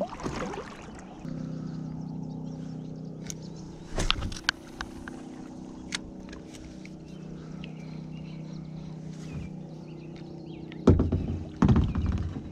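A steady low engine-like hum runs under most of it, with scattered sharp clicks and knocks as a spinning rod and reel are handled in a plastic kayak. Two loud thumps come about a second apart near the end.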